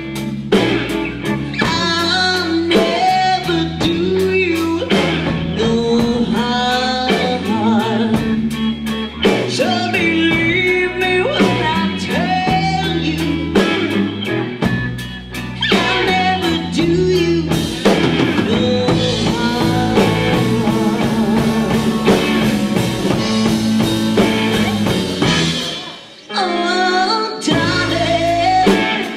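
Live blues-rock band playing a song with sung vocals, drum kit and guitar; the music dips briefly near the end.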